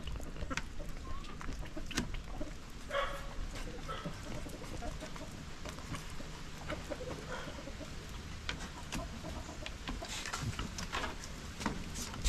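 Chickens clucking quietly, with a few short calls, along with scattered light clicks and knocks.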